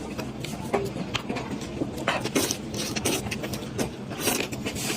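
Close-up eating sounds: chewing and crunching food, with many short, irregular crisp clicks over a steady low hum.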